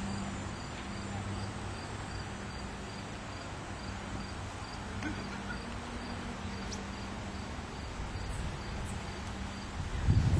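Insects chirping, a short high note repeated evenly a few times a second, over steady outdoor background noise and a low hum that comes and goes. A low rumble swells up near the end.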